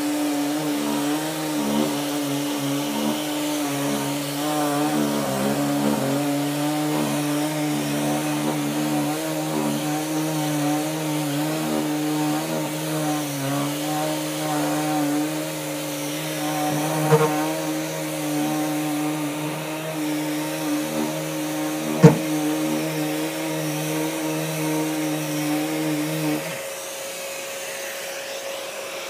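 Uneeda 5-inch EKASAND random orbital electric sander running steadily on a wooden door panel with its dust extraction hooked up, with one sharp knock about three-quarters of the way through. Near the end the sander's hum stops, leaving a quieter steady hum from the dust extractor.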